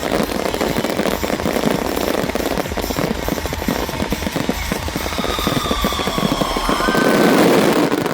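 Fireworks display: a loud, dense crackle of many rapid bangs and pops, continuing without a break.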